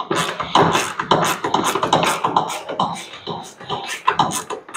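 Rapid, irregular clicking and knocking from hand-tool work on the car's interior seat-belt and seat hardware, several sharp clicks a second.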